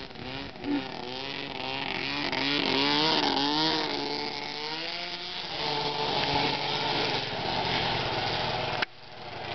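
Snowmobile engine running while towing a snow racer, its pitch rising and falling with the throttle and loudest about three seconds in as it passes close. It then settles into a steadier, lower drone, with a sudden brief dropout near the end.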